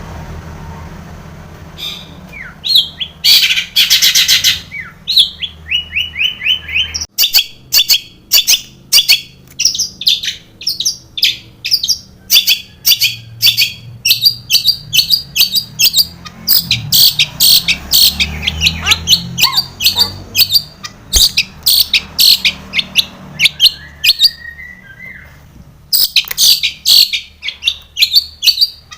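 Long-tailed shrike (cendet) singing hard: a fast, loud string of short, sharp high notes with a rapid trill a few seconds in and a brief pause near the end, its song mixed with mimicked phrases of other birds.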